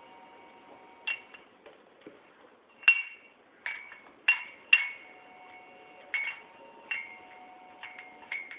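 An empty tumbler being knocked and batted about by a cat: about nine sharp clinks at irregular intervals, each ringing briefly.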